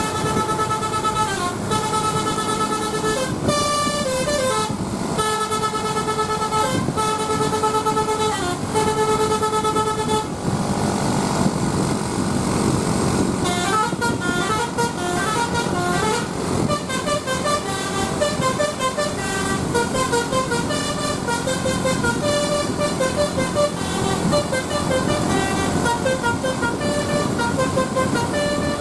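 Bus telolet horn (Basuri type) playing a tune. For about ten seconds it sounds long held multi-tone notes, then it changes to a quicker run of short notes at changing pitches.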